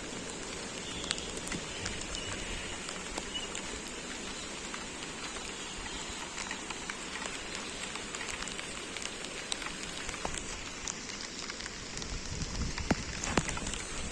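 Steady hiss of rushing water dotted with many fine ticks like raindrops: rain falling over a fast-flowing, flooded river, with a few louder ticks near the end.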